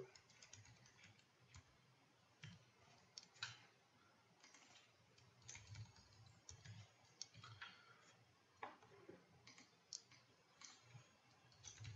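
Faint, irregular clicks of keys being typed on a computer keyboard, a few at a time with gaps between them.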